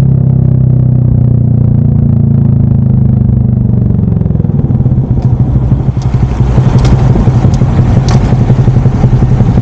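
Honda Monkey 125's single-cylinder four-stroke engine running while riding: a steady, slightly falling note, which about halfway through turns to a lumpy, pulsing low-revving beat as the bike slows toward traffic, with a few sharp clicks near the end.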